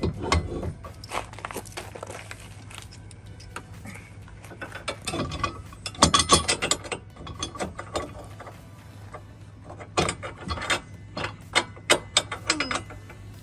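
Steel hitch bar of a hitch-mount bike rack being worked into a 2-inch hitch receiver: clusters of metal scrapes, clicks and knocks, loudest about six seconds in and again around ten to thirteen seconds.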